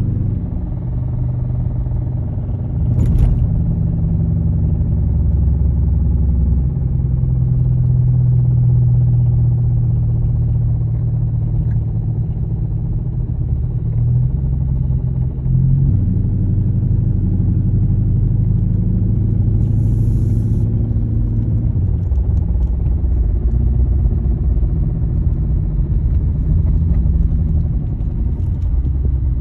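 2015 Dodge Charger R/T's HEMI V8 running with a steady low rumble whose pitch shifts a few times, carrying the vibration and knocking noise that the owner cannot identify. A sharp click about three seconds in.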